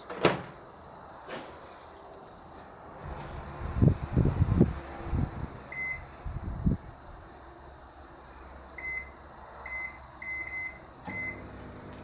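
Lumina microwave oven door clicking shut, a few low thumps, then about half a dozen short keypad beeps as the cooking time is set for another run. A steady high insect drone of crickets carries on behind.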